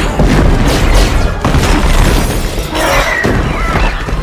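Action-film destruction sound effects: loud, continuous crashing, shattering and booming of wreckage, with music underneath and a short wavering pitched sound about three seconds in.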